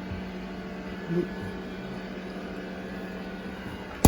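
A 1,000-watt ALP generator running steadily at its higher speed with econo mode off, carrying a full-size refrigerator just after the fridge's start-up power spike. Its steady hum is broken by one sharp click near the end.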